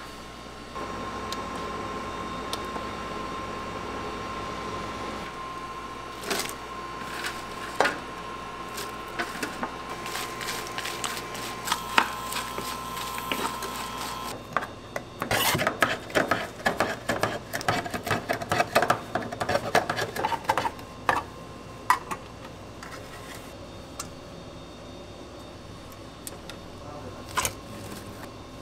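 Steady kitchen hum with a faint steady tone and a few light knocks. About halfway through, dense dry rattling and scraping as dried anchovies are stirred with a wooden spatula in a dry pan, lasting several seconds before it settles back to the hum.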